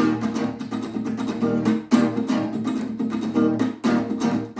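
Acoustic guitar strumming chords in a steady rhythm: an instrumental passage between sung verses.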